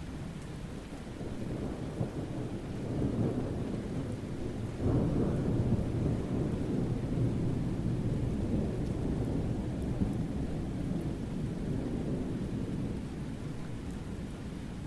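Summer thunderstorm: steady rain with a long, low thunder rumble that swells from about two seconds in, breaks sharply louder about five seconds in, and slowly rolls off toward the end.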